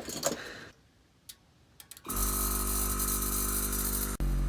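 Electric air compressor of a Vixen train horn kit switching on about two seconds in after a couple of faint clicks, then running with a steady hum and hiss as it builds pressure in the horn's air tank on its first run. It cuts out for an instant near the end and carries on.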